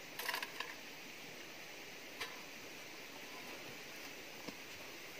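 Fingers and wet seeds clinking against a small stainless-steel bowl: a quick cluster of light metallic clinks with a short ring about half a second in, then a single tick about two seconds in. A steady low hiss of background ambience underlies it.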